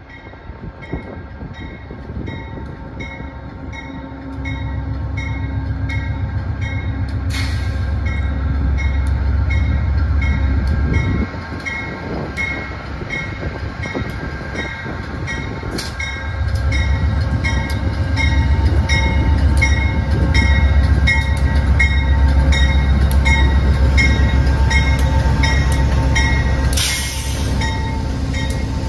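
GE Genesis diesel locomotive pulling a passenger train into the station, its engine rumbling louder as it comes alongside. A bell rings steadily about twice a second throughout, and a short hiss sounds near the end.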